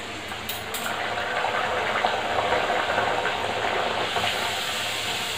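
Puri deep-frying in hot oil in a kadhai: a steady sizzle with a few crackles, swelling slightly about a second in as the puri is pressed under with a slotted spoon.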